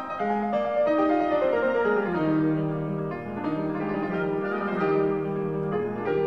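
Background music: piano playing a flowing melody.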